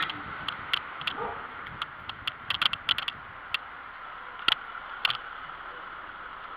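Bicycle rolling over brick paving, rattling with a string of sharp, irregular clicks and knocks over the bumps, over a steady hiss; the clicks stop about five seconds in and the hiss goes on.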